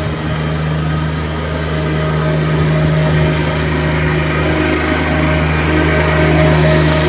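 Heavy engine idling steadily, a constant low drone that grows a little louder near the end.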